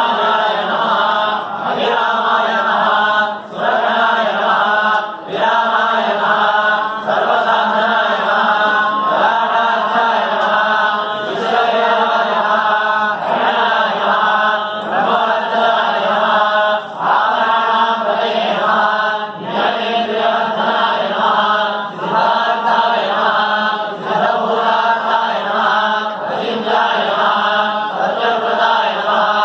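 A group of priests chanting the Sanskrit names of Shiva together, in short, regular phrases.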